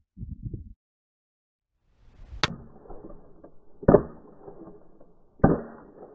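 Three shots from a Savage 64F .22 LR semi-automatic rifle, about a second and a half apart: the first sharp, the other two dull with a short echo, over a steady outdoor background hiss.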